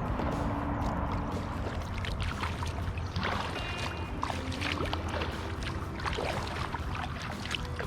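Kayak paddles dipping and splashing with water dripping on calm lake water, over a steady low motor drone.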